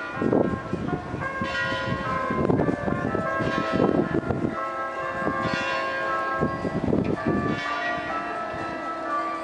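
Church bells ringing at noon, with repeated strokes over a steady hum of several lingering bell tones.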